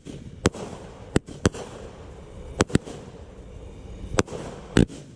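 Fireworks going off: about eight sharp bangs at uneven intervals, some in quick pairs, with a low crackling haze between them.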